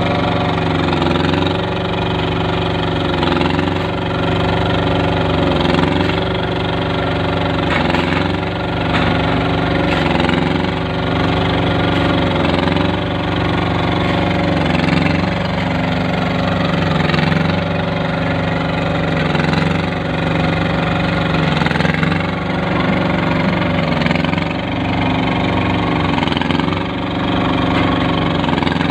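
Small engine of a concrete curb-stone forming machine running steadily, its pitch sagging briefly every few seconds.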